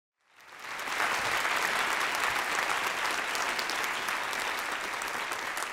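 Audience applauding, fading in over the first second and then holding steady.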